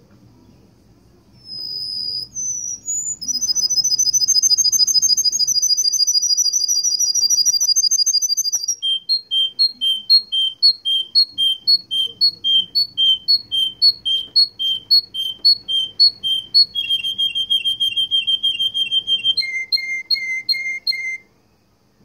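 Russian song canary singing a long song of changing phrases. It begins about a second and a half in with a fast high trill, moves to a run of spaced repeated notes, then a lower rolling trill, and ends with a short lower series shortly before the end.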